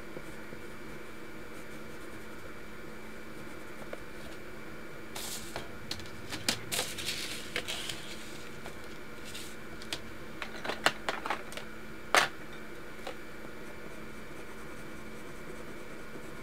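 Pencils and paper being handled on a desk: light taps and clicks with a short rustle about a third of the way in, then a few more clicks, the last one the sharpest, over a steady faint hiss.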